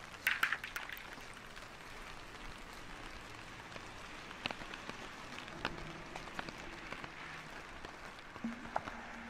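Steady rain falling on a wet street, with scattered drips and drops ticking and pattering, a quick cluster of them about half a second in. A faint low hum comes in near the end.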